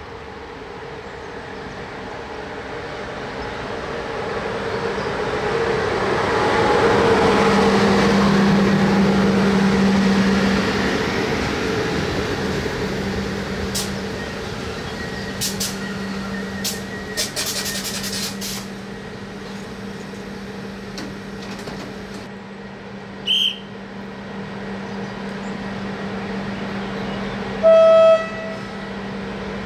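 An electric-hauled passenger train passing at speed: rumble and rail noise swelling as it draws near and goes by, over a steady low hum, then a run of sharp wheel clicks as the coaches roll past. Near the end, a short horn toot.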